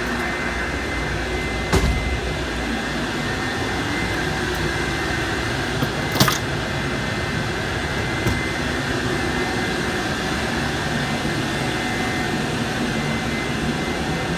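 Blower of a 6-inch pneumatic tube system running: a steady, loud rushing noise with a thin high whine over it. Two brief knocks stand out, about 2 and 6 seconds in.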